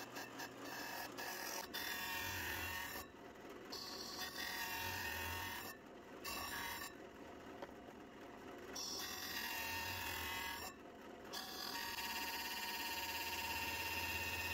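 Drill press spinning a hole saw of about 4 inches as it cuts curved slots into a wooden block: a steady, high, ringing whine over a low motor hum, broken off abruptly several times.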